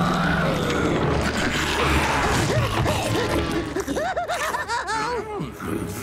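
Cartoon slime monster roaring, a loud rough roar with a heavy low rumble, over dramatic cartoon music. About four seconds in it gives way to a run of quick warbling swoops in pitch.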